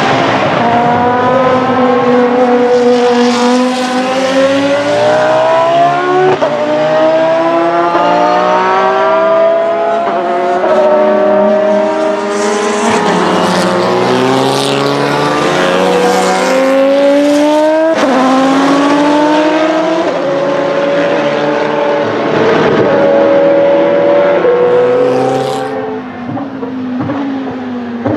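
Race car engines at full song, led by the naturally aspirated Judd V10 of a Jordan F1x3 three-seat Formula 1 show car. The note climbs as it accelerates and drops sharply at each upshift, with other formula cars' engines overlapping around the middle.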